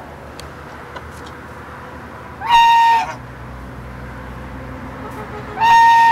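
Domestic goose honking twice, about three seconds apart; each honk is loud, nasal and flat in pitch, about half a second long.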